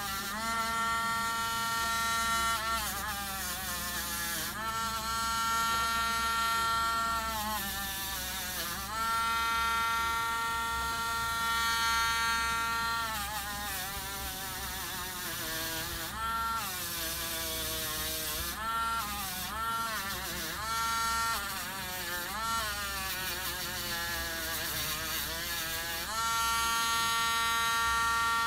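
Small handheld rotary tool spinning a soft brush wheel, buffing rust and corrosion off a vintage Bolex H-16 camera clutch part. Its motor whine sags in pitch several times, each time the part is pressed into the brush and the tool slows under load, then climbs back to full speed.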